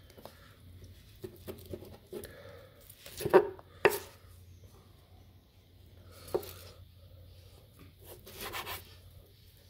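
Chef's knife cutting through grilled T-bone steak and knocking on a wooden cutting board: scattered slicing strokes and taps, the two sharpest close together about three and a half seconds in, and a longer stroke near the end.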